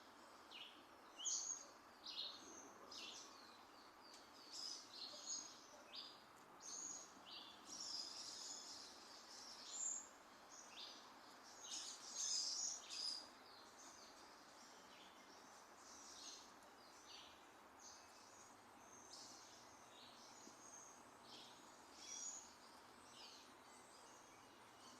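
Small birds chirping and singing, many short high chirps in quick succession, busiest in the first half and thinning out later, over a faint steady background hiss.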